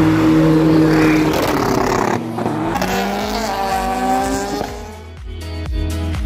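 Car engine revving hard with a noisy tyre-and-exhaust haze, its pitch climbing in rising sweeps about three seconds in. About five seconds in, music with a steady beat takes over.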